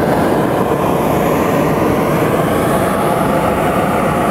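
Hot air balloon's propane burner firing in one loud, steady blast.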